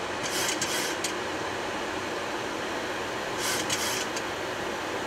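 Steady flight-deck noise of a Boeing 737-800 on final approach with gear and flaps down: air rushing past the airframe, mixed with air-conditioning hiss. Brief high hissing bursts come in two clusters, about half a second in and again about three and a half seconds in.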